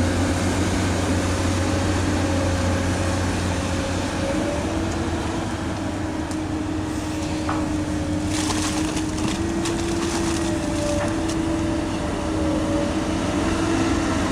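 Komatsu PC200 excavator's diesel engine running under load while it digs, a steady hum with a higher whine that drifts slightly in pitch. A few light clicks and knocks come about halfway through.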